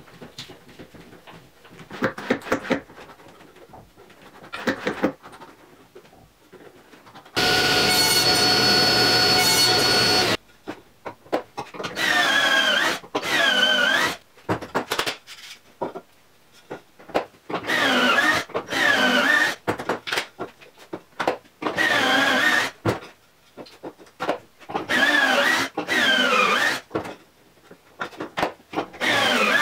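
Cordless drill running at full speed for about three seconds, then driving screws in a string of short bursts, often in pairs, the motor's pitch sagging and recovering under load as each screw goes in. A few knocks of wooden parts being handled come first.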